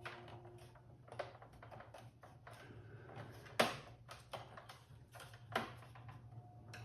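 Plastic case panel of a desktop PC being handled and pressed into place: scattered clicks and knocks, the loudest about three and a half seconds in and another near five and a half seconds.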